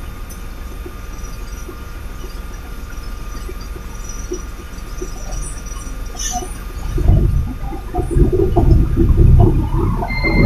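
Truck's diesel engine with a low, steady rumble that grows much louder and rougher about seven seconds in.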